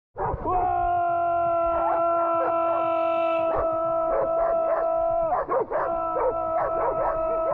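Dogs howling and yipping: a long howl held on one steady pitch, with shorter rising-and-falling cries over it. The long note breaks off about five seconds in and starts again.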